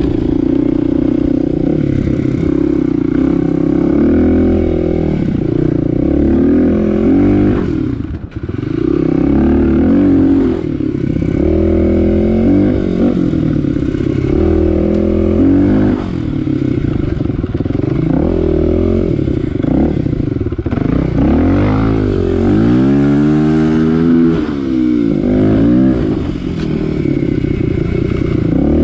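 Kawasaki KLX250's single-cylinder four-stroke engine running under way, revving up and down as it accelerates and shifts. Its pitch drops sharply about eight seconds in, and again about two-thirds through before climbing back.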